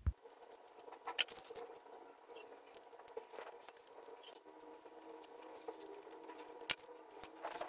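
Scattered light clicks and scratches of hands working cardboard pieces with a hot glue gun, over a faint steady hum. One sharper click comes near the end.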